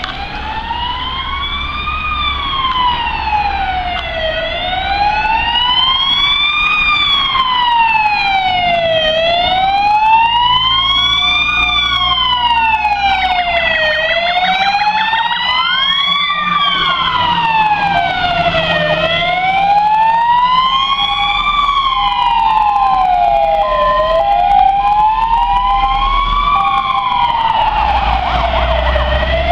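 Wail sirens of Mercedes-Benz Atego fire engines on an emergency run, rising and falling slowly about once every four to five seconds. More than one siren sounds out of step, and short steady tones come and go in the second half over the rumble of the trucks.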